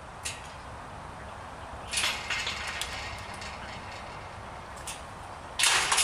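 Wind rumbling on the microphone, with a few faint clicks, a patch of hissy noise about two seconds in and a short, loud rush of noise near the end.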